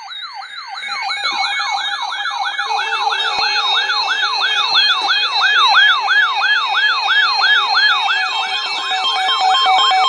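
Weather radio alert alarm sounding, set off by a test of the tone alarm: a loud, siren-like whoop rising and falling about three times a second. A steady tone and a pulsing beep join in during the first few seconds.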